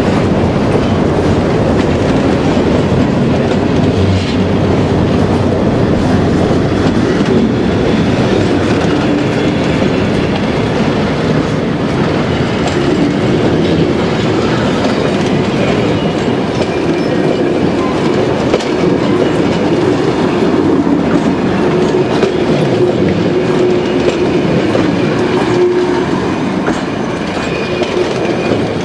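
A mixed freight train's covered hopper cars and then vintage passenger coaches rolling slowly past on a curve, a steady rumble with the wheels clicking over the rail joints. Faint thin wheel squeal comes in over the second half.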